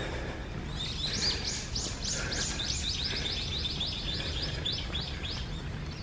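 A songbird singing a long run of quick, repeated high notes, about five a second, starting about a second in and stopping shortly before the end, over a steady low background noise.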